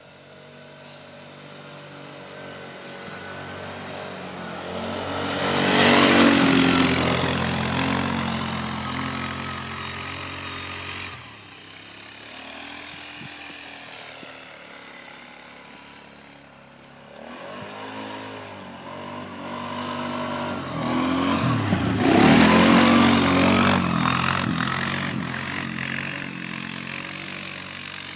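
Polaris 6x6 ATV engine running as the machine works back and forth, its pitch rising and falling with the throttle. It swells twice to a loud peak with a rush of noise, about sixteen seconds apart, and drops off suddenly between them.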